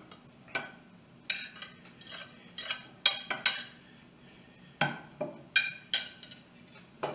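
A metal fork scraping and clinking against a china plate and the pressure cooker's metal pot as shredded chicken is pushed back into the soup and stirred: about a dozen sharp, irregular clinks and taps.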